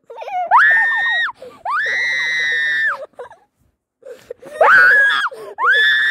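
A child screaming: four high-pitched shrieks, each held at a steady pitch, the second the longest, with a short pause in the middle.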